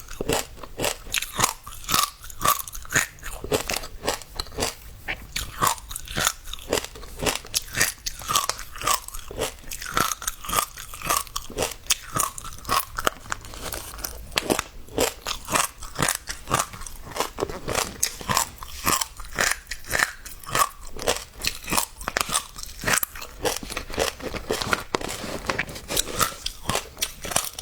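Passionfruit seeds crunching and popping while being chewed: a dense run of sharp crackling pops, several a second.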